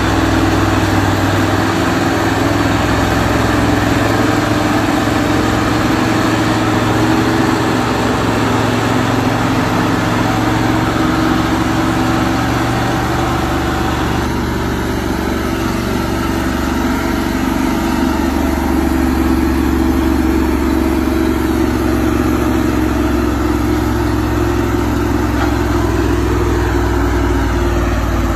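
Heavy diesel engine of a log-laden lorry running steadily on a muddy forest track. About halfway through the sound changes abruptly to another log truck's engine.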